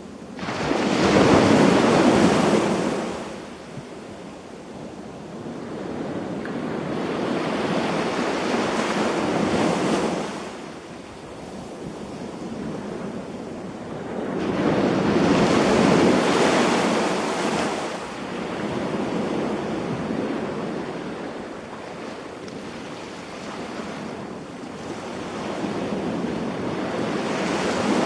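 Sea waves breaking and washing onto the shore in slow surges that swell and die away every few seconds, the strongest about a second in and again about halfway through.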